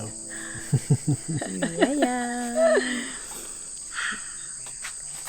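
Steady chorus of jungle insects, shrilling at two high pitches. About a second in, a brief pitched call rises, holds with a slight waver, and stops near the three-second mark, among a few short knocks.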